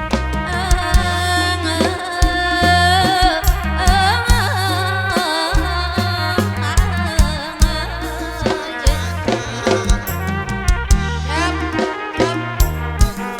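Kantrum folk band playing live through a loud PA sound system: a steady drum beat with heavy bass hits under a wavering lead melody.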